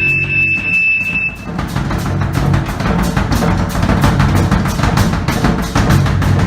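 Live rock band playing. A held high tone over a low bass cuts off about a second and a half in, and busy drum kit playing with bass drum and snare takes over, with a low bass underneath.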